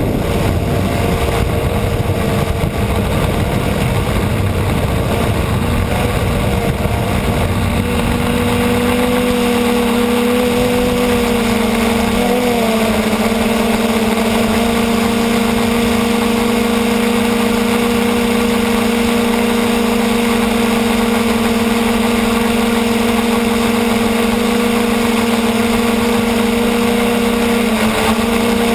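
Electric motors and propellers of a camera drone hovering, heard through its onboard camera: a steady hum over a rushing noise. The hum's pitch settles about eight seconds in and then holds steady, with brief wobbles.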